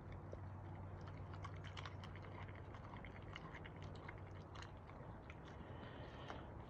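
A Doberman chewing a raw, skinned squirrel: a string of irregular, crisp clicks and crunches from teeth on meat and bone, over a faint steady low hum.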